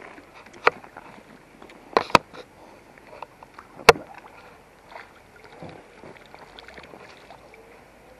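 Water splashing and sloshing as a large tench is drawn into a landing net and the net is lifted out of the pond, dripping, with a few sharp knocks from the net and rod being handled, the loudest a little before 4 seconds in.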